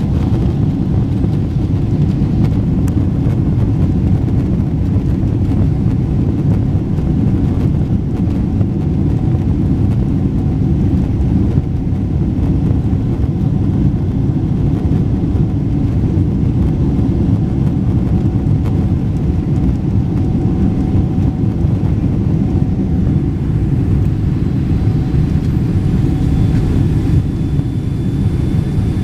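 Cabin noise inside a Boeing 777-300ER on the ground: a steady low rumble of its GE90 engines and the airframe rolling on the taxiway. A thin high whine joins faintly near the end.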